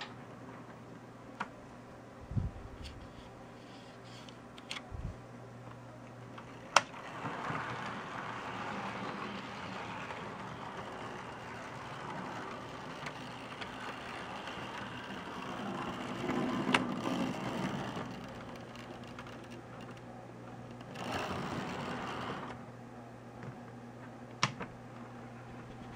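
HO scale model freight train running on sectional track behind a 1960s-built 0-6-0 steam switcher model: cars rolling and clattering over rail joints and turnouts, with a steady hum underneath and several sharp clicks. The rolling grows louder through the middle stretch and once more for a moment later on.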